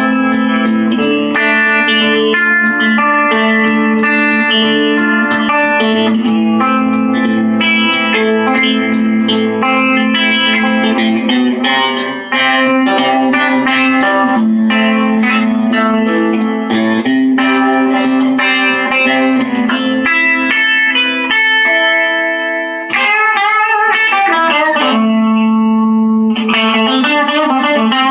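Guttlin Baronet Doublet electric guitar, an all-mahogany neck-through with Guttlin BarBar Cigar pickups, played as a melody of picked notes over a steady low note held underneath. About 23 s in the notes waver and bend before the low note returns.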